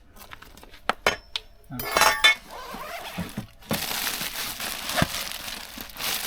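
A backpack being handled and opened: a few light clicks, a louder rustling scrape about two seconds in, then steady rustling from a little past halfway.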